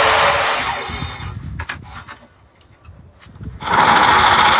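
A power tool working wood runs loudly, stops for about two seconds with a few knocks in the pause, then starts again near the end.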